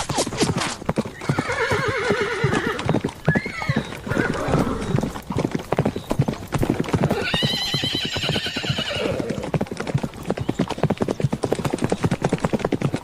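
Horses galloping, a rapid dense clatter of hoofbeats, with whinnies rising over it about a second in and again midway.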